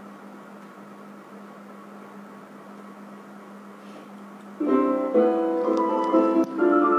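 A faint steady hum, then a little over four seconds in, light background music of short pitched notes starts abruptly, playing from the TV's handwriting-lesson animation.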